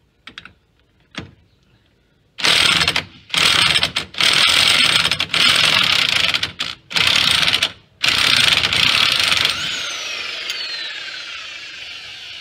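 Corded electric impact wrench hammering on a car's axle nut in about six bursts with short pauses between them. After the last burst its motor winds down with a falling whine.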